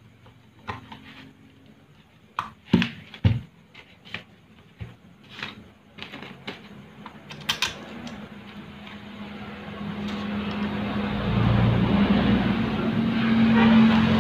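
Sharp clicks and light knocks of a screwdriver and metal parts as the housing of a rewound electric fan motor is reassembled, two louder knocks about three seconds in. From about eight seconds a steady mechanical hum with a rushing noise swells up and stays loud to the end.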